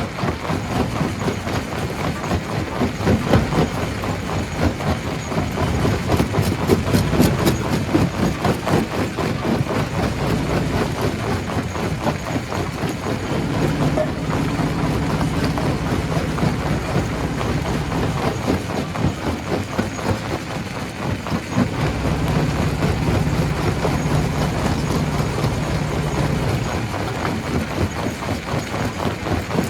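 Stone crusher running: a continuous heavy mechanical din with dense rattling and knocking of rock being broken, over a low steady hum that fades in and out a few times.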